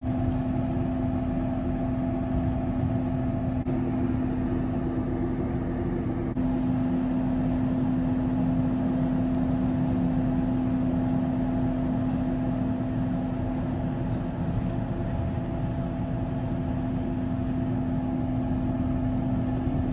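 Cabin noise inside a Cessna Citation Sovereign (C680) business jet taxiing: a steady drone from its twin turbofan engines with a constant hum tone, which grows a little stronger about six seconds in.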